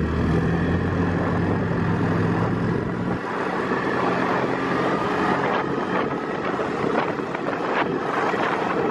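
Snowmobile running under way, its engine hum mixed with wind rushing over the microphone. The steady engine tone drops away about three seconds in, leaving mostly wind and track noise with a few knocks.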